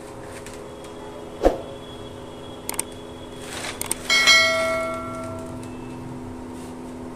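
Subscribe-button animation sound effect: a knock and a couple of clicks, then about four seconds in a bright bell chime that rings out and fades over a second and a half. A steady low hum runs underneath.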